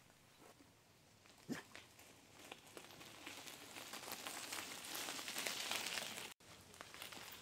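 Bicycle tyres crunching over a gravel track, growing louder as the bike approaches and passes close by, with one short sharp sound about a second and a half in.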